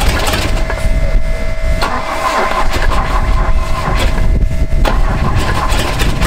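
A 1966 Volvo Amazon's B18 four-cylinder engine running unevenly just after starting, rocking hard on its mounts; the owners suspect a bad motor mount.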